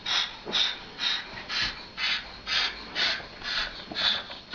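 Cockatoo hissing at a cat in short breathy bursts, about two a second and evenly spaced: a threat display.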